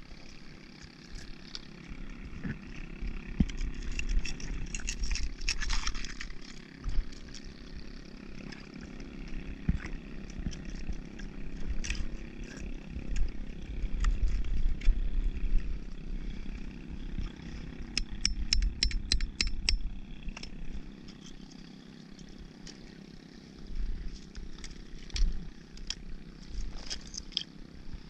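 Oyster shells being knocked, chipped and scraped with a metal tool to break live oysters off a crusted cluster, giving scattered sharp clicks and knocks with a quick run of clicks about two-thirds of the way in. A steady low drone runs underneath.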